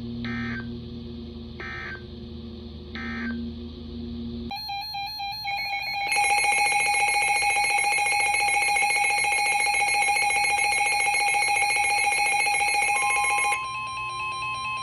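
Emergency Alert System audio: three short buzzy digital data bursts about a second and a half apart, typical of the end-of-message code after a warning, over a low radio hum. Then a loud, harsh, steady alert tone runs for about eight seconds and drops to a quieter steady tone near the end.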